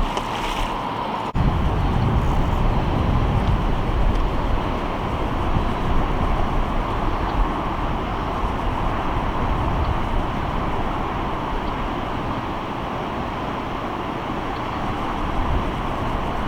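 Steady outdoor background noise: a low rumble under an even rushing hiss, stepping up in loudness about a second in.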